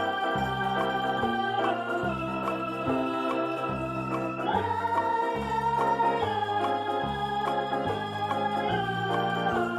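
Background music: sustained organ-like chords that change every second or two over a bass line stepping in short, even blocks.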